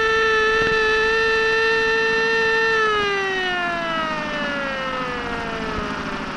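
Ship's siren sounding one long blast, held steady, then sliding down in pitch and fading as it winds down from about three seconds in. It is a salute signal sounded by passing ships.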